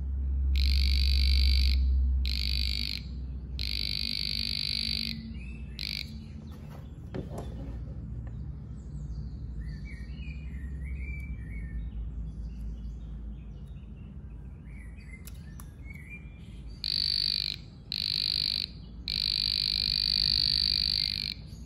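Aneng VD806 non-contact voltage tester's buzzer sounding in steady high-pitched bursts of uneven length as it detects live AC voltage on its high-sensitivity setting. There are four bursts in the first six seconds, a quiet stretch, then three more starting about two-thirds of the way in.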